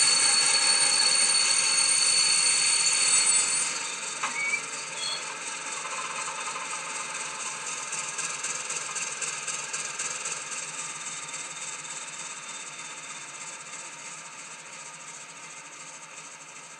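The recorded diesel engine sound of a Class 56 locomotive (its Ruston-Paxman V16) playing from a model's sound decoder through its small onboard speaker. It runs loud with a steady high whine for the first few seconds, then drops to a quieter running note as the model slows to a stand, with a short squeal about four seconds in, and slowly fades away.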